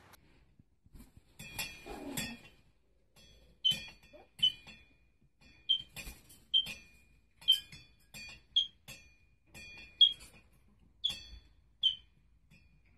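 Repeated light metallic clinks, each with a short ring at the same pitch, about one a second, from the metal hook of a hanging rope toy as a galah swings and spins on it. A few softer rattles come in the first seconds.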